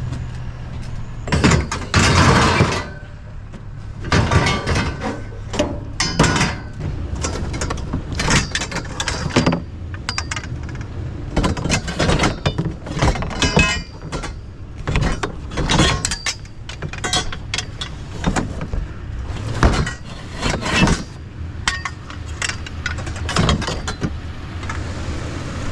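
Thin scrap sheet metal being pulled apart and handled: a long irregular run of clanks, rattles and scrapes, over a steady low engine hum.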